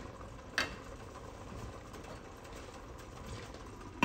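A single light tap about half a second in, then only a low, steady background noise in a quiet kitchen.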